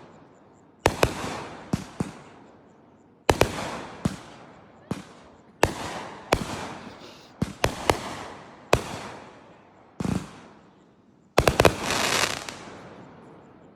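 Fireworks bursting: about ten sharp bangs at irregular intervals, each trailing off in a rolling echo, with a quick run of several bangs near the end.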